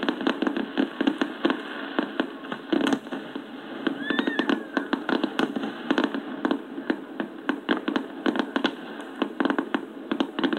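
Fireworks shells bursting and crackling in a dense run of sharp bangs, played back from a computer, so the sound is thin with little bass.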